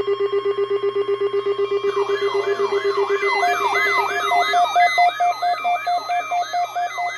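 Layered electronic alert tones. A fast-pulsing steady tone is joined about two seconds in by a siren-like sweep that rises and falls two to three times a second, then by a higher beeping tone; the pulsing tone stops about halfway through.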